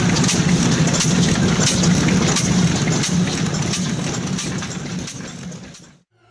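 Karui 4.5 hp kerosene stationary engine running slowly, firing in a steady beat about twice a second. The sound fades away near the end.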